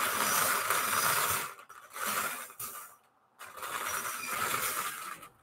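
Hand-cranked gold wire bingo cage being turned, the numbered balls tumbling and rattling against the wire in three spells with short breaks between them.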